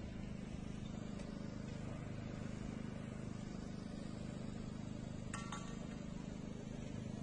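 Open-air city square ambience: a steady low hum of distant traffic and town background, with one brief high-pitched sound about five seconds in.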